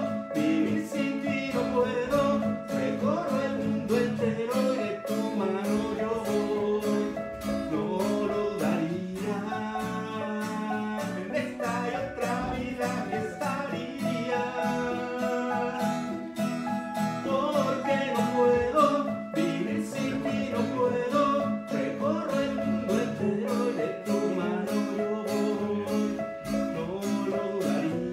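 Acoustic guitar strummed in a steady rhythm together with a Casio Tone Bank electronic keyboard, with a man singing along in a live home performance.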